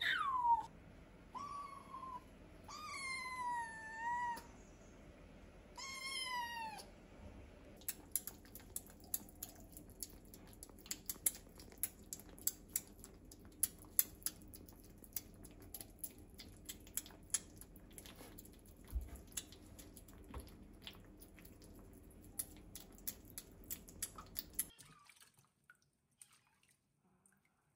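Kittens meowing four times, short high calls that fall in pitch, then a long stretch of quick small clicks and smacks of kittens eating wet food from stainless steel bowls, which stops near the end.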